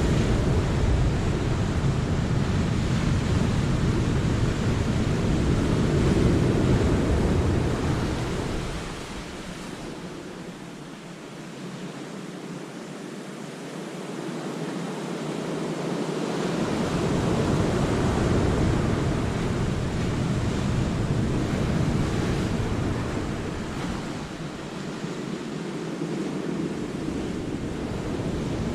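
Sea waves surging and washing over the rocks of a cove in a continuous rush that swells and ebbs. It is loud for the first several seconds, eases for a while in the middle, then builds again. A low wind rumble on the camera microphone comes and goes with the louder stretches.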